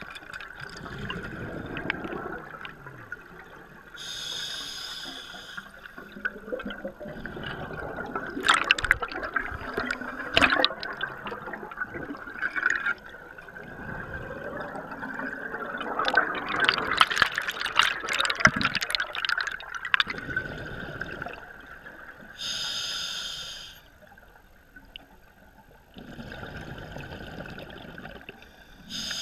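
Scuba diver breathing through a regulator underwater: short high hisses of inhalation alternating with longer rushing, bubbling exhalations. A steady high tone runs underneath.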